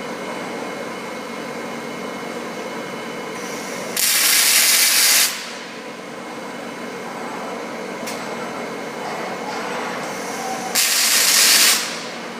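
Steady machinery noise in a robotic welding cell, broken twice by a loud hiss lasting about a second, the two about seven seconds apart.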